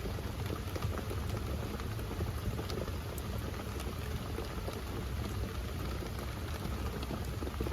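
Steady rain falling on a bike camper, many small drop ticks over a low rumble.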